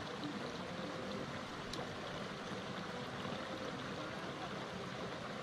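Mountain stream running: a steady rush of flowing water, with a faint click about two seconds in.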